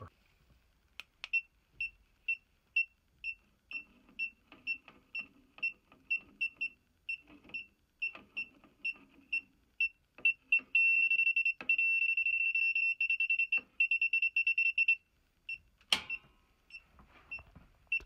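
Klein Tools circuit breaker finder receiver beeping, a short high beep about twice a second, which quickens into a rapid, nearly continuous beeping for about four seconds as it passes over the breaker feeding the circuit. A sharp click follows near the end, the breaker being switched off, then a few more beeps.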